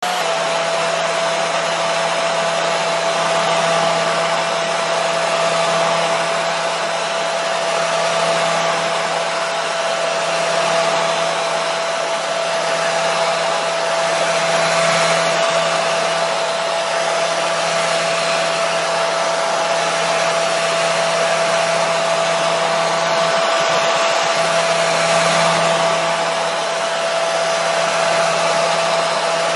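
Hair dryer running steadily: an even rushing of air with a steady whine from the motor and fan.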